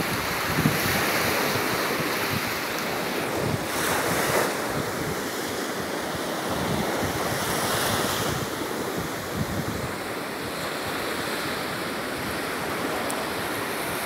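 Wind buffeting a phone's microphone over shallow sea water lapping at the shoreline: a steady rushing noise that swells a couple of times.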